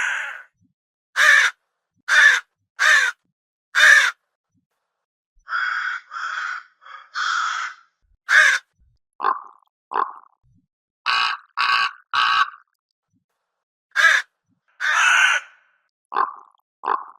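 A crow cawing: harsh calls in quick groups of two to four, some short and clipped, some longer and drawn out, with clean silent gaps between the groups.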